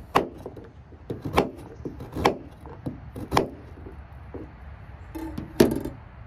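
Chef's knife slicing a carrot into rounds on a wooden cutting board: a handful of separate knife strokes knocking on the board about a second apart, the last and loudest near the end.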